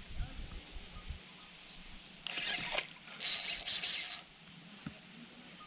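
Spinning reel's drag buzzing as a hooked fish pulls line against it. There are two runs: a short one, then a louder one about a second long.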